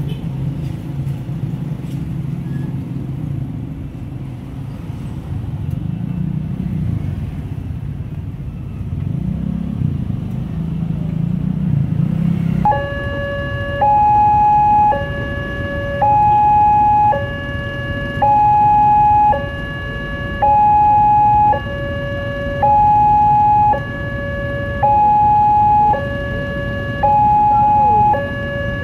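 Motorcycle and car traffic rumbling over a railway level crossing. About 13 seconds in, the level-crossing warning alarm starts: an electronic two-tone signal that alternates between a higher and a lower tone, each held about a second, with the higher tone louder, meaning a train is approaching and the barrier is down.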